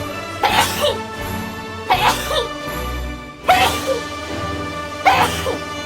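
A march-style music track made of sneezes: four loud sneezes land on a regular beat, about one every second and a half, over sustained backing notes.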